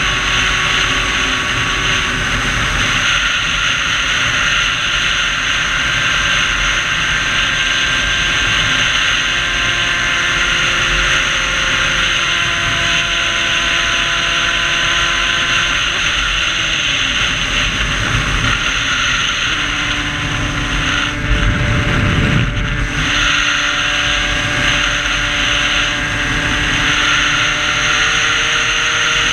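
Sherco dirt bike's two-stroke engine, fitted with a 75 cc MVT kit and MVT expansion exhaust, running at high revs on the move, its pitch stepping up and down, with heavy wind rushing over the microphone.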